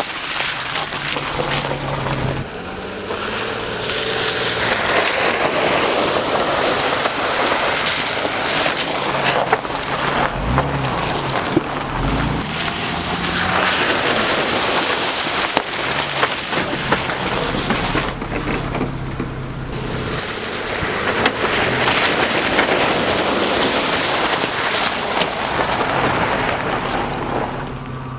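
Off-road vehicle driving along a muddy, icy dirt road: a low engine hum under loud, steady tyre and road noise.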